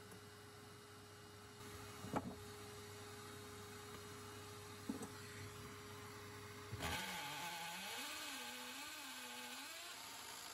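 Two faint handling knocks. About seven seconds in, an electric motor starts, with a hiss of air and a low pitch that wavers up and down.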